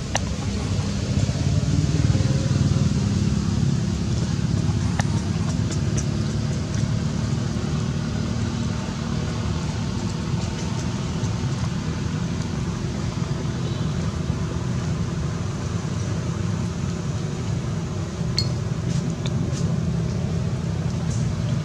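Steady low rumble of outdoor background noise, with a few faint clicks near the end.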